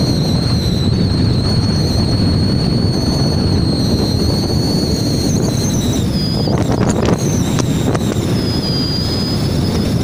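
Wind buffeting the microphone on the open deck of a ship under way: a steady, loud rushing noise, with a thin high whistle that wavers and shifts in pitch after about five seconds.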